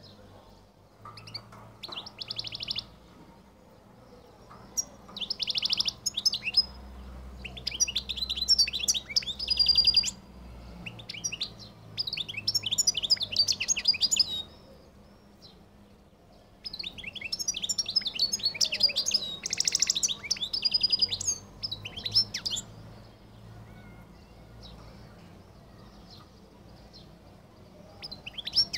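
European goldfinch of the Algerian Collo singing type in song: several phrases of rapid twittering and buzzy trills, separated by short pauses, then a pause of several seconds near the end.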